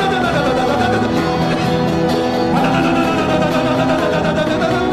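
Church worship music with guitar under a congregation singing in tongues, steady and unbroken.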